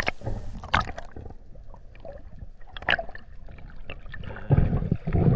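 Underwater gurgling and bubbling picked up by a submerged camera, with scattered sharp clicks and a louder surge of bubbles near the end.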